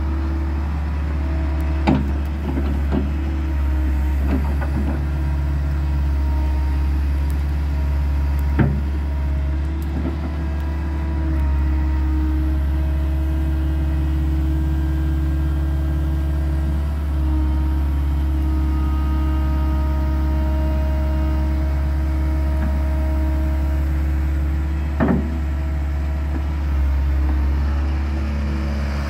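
JCB JS130 tracked excavator's diesel engine running steadily while the arm, bucket and swing are worked, with a higher hydraulic whine coming and going. Three short sharp knocks from the machine, a few seconds in, later and near the end.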